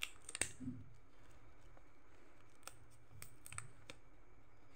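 Plastic wrap of a ream of copier paper being cut open with a small blade: a few faint, sharp clicks and crackles of the film, several close together in the second half.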